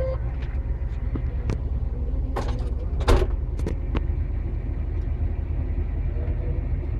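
A motor vehicle's engine running with a steady low rumble, with a few sharp knocks or clicks about two and a half to four seconds in.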